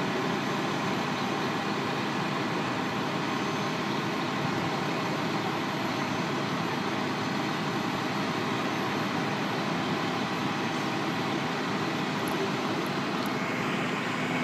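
Diesel engines of a fire engine and an aerial ladder truck running steadily, powering the pump and the raised ladder.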